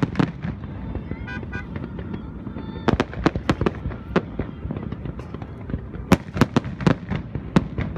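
Fireworks going off: a quick run of sharp bangs and pops. There is a short lull about a second in, then dense clusters of bangs in the middle and again near the end.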